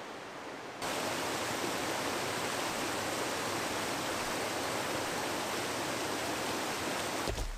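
A rocky bush river rushing over small cascades between boulders: a steady, even rush of water that starts suddenly about a second in.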